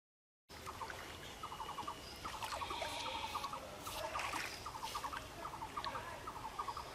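Outdoor ambience with an animal's repeated rattling call: short bursts of rapid clicks about every half second, over a soft hiss. The sound starts abruptly about half a second in.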